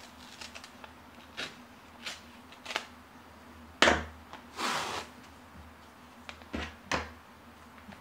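Small 3D-printer spatula scraping and tapping as it smooths painter's tape down over a vinyl decal on a desk: a series of short scrapes and knocks, the loudest about four seconds in, followed by a brief rub.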